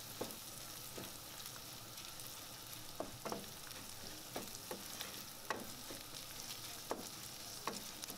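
Minced meat with onion and tomato frying in a pan with a faint, steady sizzle. A wooden spoon stirs it, scraping and knocking against the pan in short, irregular strokes about once a second.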